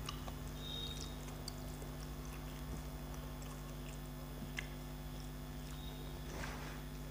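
Light clicks and soft rustling of fingers mixing rice on a steel plate, over a steady low hum, with one sharper click about four and a half seconds in.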